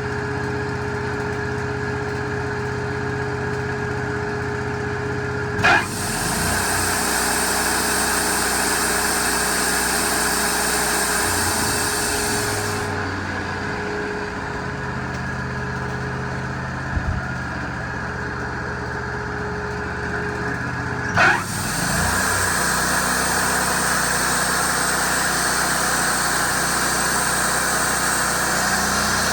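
Wood-Mizer LT40 portable band sawmill running steadily. Twice, about fifteen seconds apart, a short loud sweep sounds and is followed by a steady high hiss over the engine.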